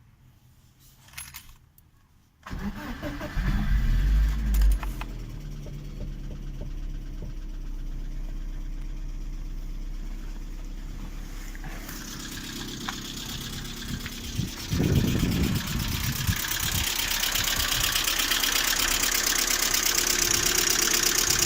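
Lada Priora's VAZ-21126 1.6-litre 16-valve four-cylinder engine cranks and starts about two and a half seconds in, then settles to idle. A rapid, even ticking grows over the idle: the hydraulic valve lifters tapping, which the owner says persists hot and cold despite oil changes and a new oil pickup.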